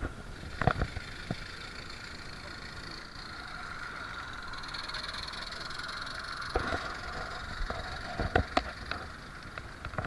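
A 16mm-scale garden railway model locomotive running, a steady mechanical hum with scattered sharp clicks and knocks, the loudest at the very end.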